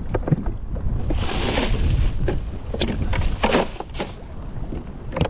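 A Yeti hard cooler on a kayak being opened and a fish put on ice: clicks and knocks from the lid and latches, and a rustle of ice and bag about a second in, over low wind rumble on the microphone.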